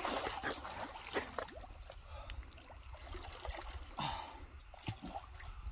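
Shallow water splashing and trickling around a large wels catfish held in the water at the shore, with irregular splashes as the fish stirs the water.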